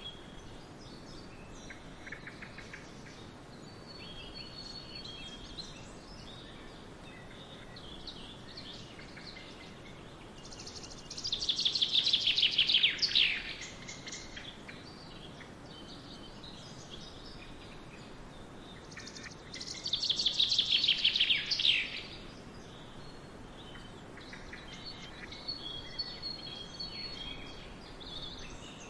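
Forest birds singing: a steady background of scattered chirps and short calls over a soft hiss. Twice a louder song of rapid notes falling in pitch rises above it, each lasting about two seconds.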